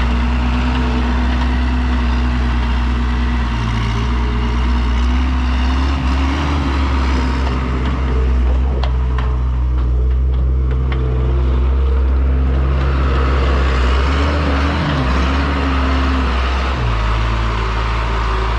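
Skid steer's diesel engine running steadily, with its engine speed rising and falling a few times as the machine works, dropping back near the end.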